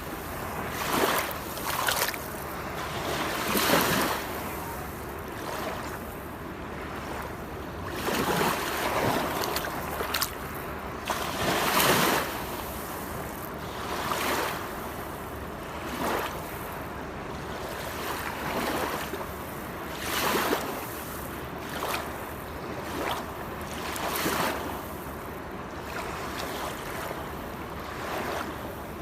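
Waterfall water rushing and splashing in a steady noise, with irregular louder surges every second or few.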